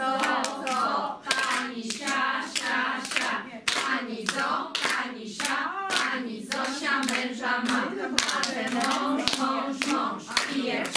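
Group of women singing a Polish folk clapping rhyme together, with sharp hand claps in a steady beat as partners clap their own hands and each other's palms.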